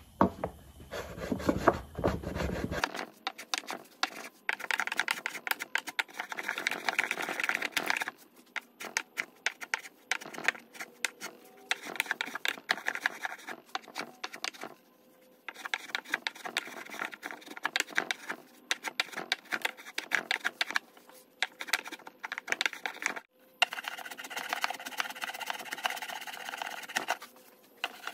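Small hand plane shaving across a hardwood slab tabletop, trimming inlaid bow-tie keys flush: quick rasping strokes in runs of a few seconds, with short pauses between runs.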